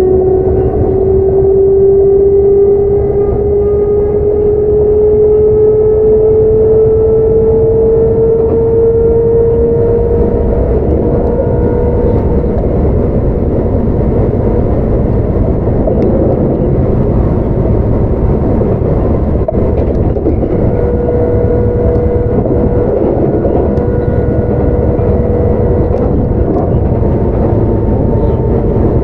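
Running sound of a Sotetsu 9000 series electric train with a Hitachi IGBT VVVF inverter and right-angle cardan drive. The motor and gear whine rises in pitch for about the first twelve seconds as the train gains speed, then sinks into the steady rumble of wheels on rail. A steady whine returns about two-thirds of the way in.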